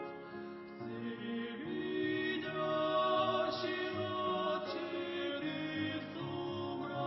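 Slow choral hymn singing in long, held notes that shift to new chords every second or so.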